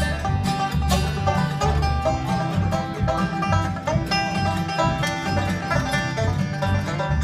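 Acoustic string band playing an instrumental break with no vocals: rhythmic banjo picking over acoustic guitar strumming and a plucked upright bass line, in a bluegrass style.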